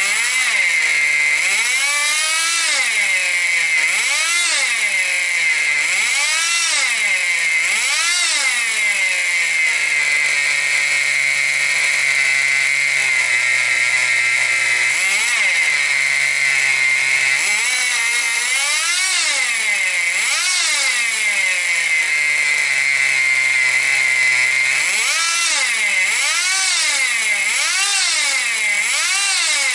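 Tamiya TGX radio-controlled car's small nitro (glow) engine running and being revved in repeated throttle blips, the pitch climbing and dropping back over about a second each time. It settles to a steady idle twice in the middle, then blips quickly again near the end, over a constant high whine.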